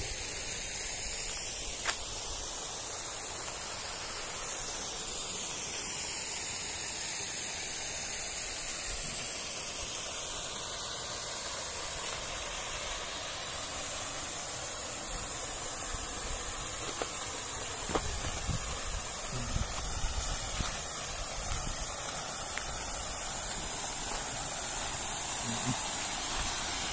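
Steady rushing hiss of falling water from a small waterfall stream. A few soft low thumps come in the second half.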